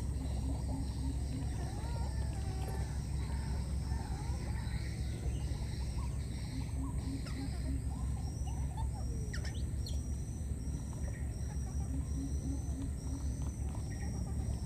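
Outdoor ambience: a steady low rumble under scattered bird calls, with a short high note repeated at an even pace from about halfway through.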